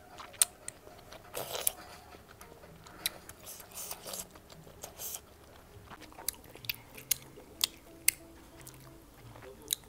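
Close-up eating sounds: biting and chewing food, with a scatter of short sharp clicks and crunches, over faint background music.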